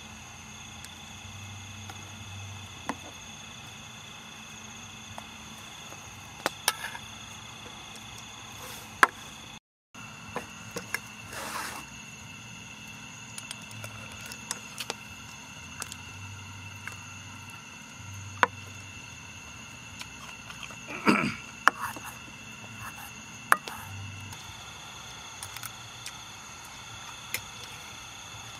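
Steady high-pitched insect trilling over a low hum, with scattered sharp clicks and knocks. The sound drops out completely for a moment about ten seconds in.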